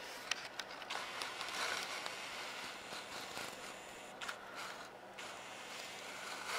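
Faint handling noise: soft rustling and scraping with a few light clicks as the camera and the diecast model are moved.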